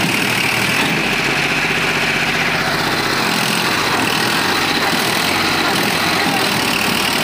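Massey Ferguson 1035 DI tractor's three-cylinder diesel engine running steadily under load while the bogged tractor's rear wheels dig into loose soil, trying to pull out of a pit.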